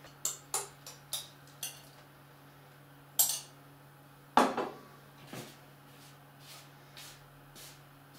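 Kitchenware clinking and knocking: a few light knocks, then two louder clinks a little after three and four seconds in, the second ringing briefly, as a small glass bowl with a spoon in it is handled. A few fainter knocks follow.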